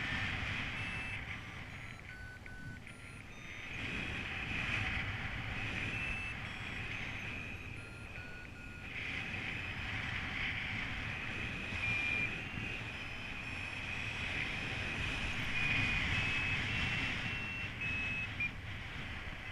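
Paragliding variometer sounding its climb tones: short electronic beeps whose pitch steps up and down as the lift varies. Wind rushes over the microphone underneath.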